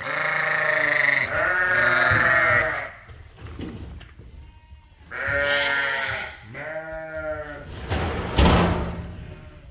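Sheep bleating: four long bleats, two back to back at the start and two more a few seconds later. A short rustling thump near the end is the loudest moment.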